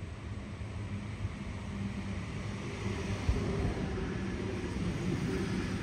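Train approaching, its low hum and rushing running noise growing steadily louder.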